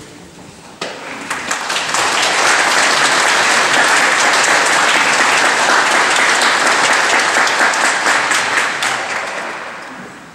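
Audience applauding to greet a choir as it is introduced. The clapping starts about a second in, swells to a steady level, then dies away near the end.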